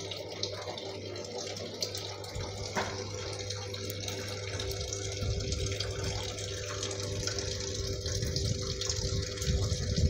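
Samsung 7 kg top-load washing machine filling: water from the inlet pours and splashes into the drum onto foamy clothes, over a steady hum. The water grows heavier and lower near the end.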